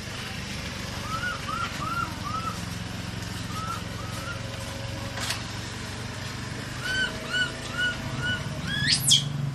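Baby macaque giving runs of short, high, arched chirping cries, four in a row about a second in, two more around four seconds and five near the end, then one sharp squeal that sweeps steeply upward. A steady low engine hum runs underneath.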